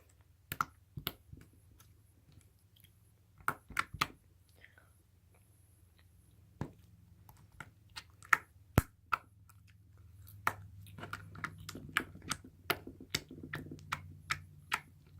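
Sticky slime being stretched and worked in the hands, giving scattered sharp clicks and pops that come more often in the second half, over a faint low hum.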